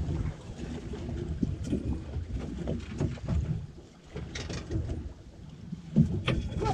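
Wind and water noise around a small boat, a rough, uneven low rumble with scattered light knocks and one sharp knock about six seconds in.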